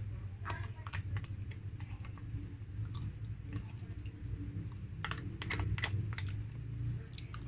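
White plastic spoon clicking and scraping against a clear plastic food tub while soft avocado float is scooped up, in bursts of quick taps with chewing sounds between. A low steady hum runs underneath.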